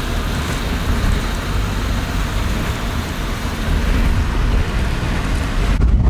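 Inside a taxi's cabin in heavy typhoon rain: a steady low rumble of road noise under the hiss of rain on the car. It cuts off near the end.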